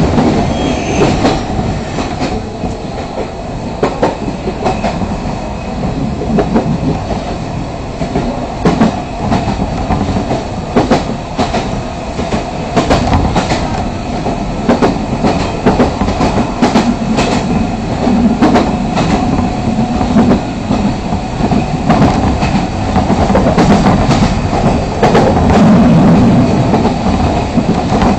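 Fukui Railway Fukubu Line train running at speed, heard from inside the car: a steady rumble with the wheels clicking irregularly over rail joints, growing a little louder near the end.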